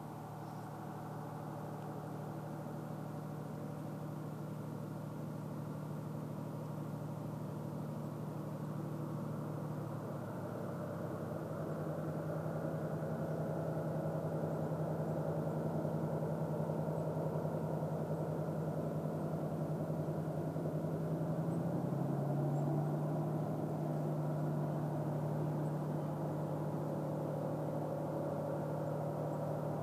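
JR Freight DF200 diesel-electric locomotive's engine working steadily under load, heard out of sight and growing slowly louder. Its humming engine note shifts in pitch about ten seconds in and again a little past twenty seconds in.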